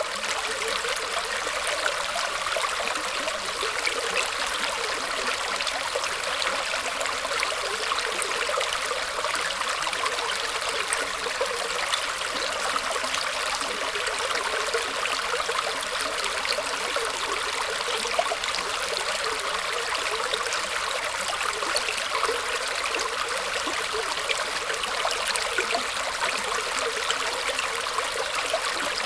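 Water trickling and flowing in a small stream among roots: a steady, bright splashing and gurgling with no change in level.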